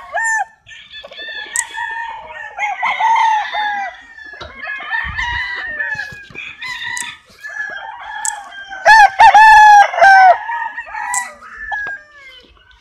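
Several roosters crowing, their calls overlapping one after another. The loudest crow comes about nine seconds in.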